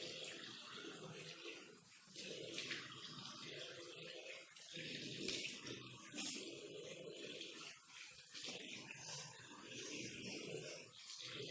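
Water running from a tap into a wash basin and splashing as someone rinses their nose, the flow dipping briefly a few times.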